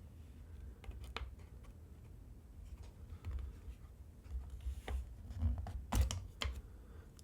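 Sparse small clicks and light taps of a small Phillips screwdriver working out the keyboard case screws, with a few sharper clicks about five and six seconds in.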